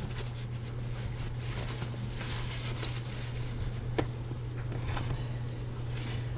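Soft rustling and rubbing as the rim of a glass bowl is wiped clean with a paper towel, with a few light clicks, over a steady low hum.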